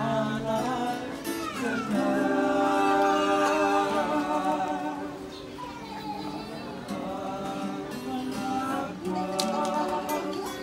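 A small group of carolers singing to acoustic guitar accompaniment, holding long notes, with a softer passage midway.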